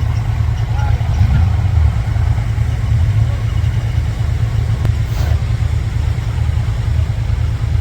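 Off-road 4x4 vehicle engine running with a loud, deep, steady rumble.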